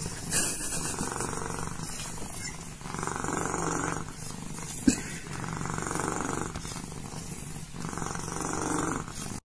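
Domestic cat purring loudly and steadily, swelling and easing with each breath every couple of seconds. A single sharp click sounds about halfway through.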